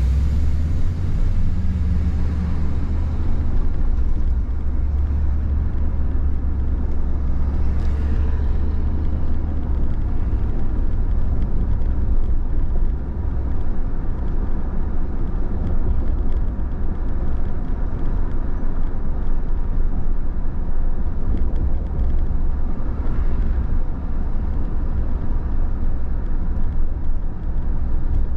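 Steady road and engine noise inside a moving car's cabin: a continuous low rumble of tyres and engine under a lighter hiss, with two brief swells of hiss, about a third of the way in and again near the end.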